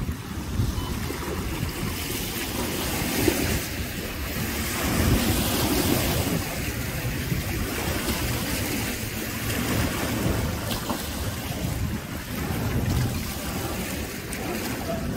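Wind buffeting the microphone over choppy lake water, with small waves lapping and splashing against the boat ramp and floating dock.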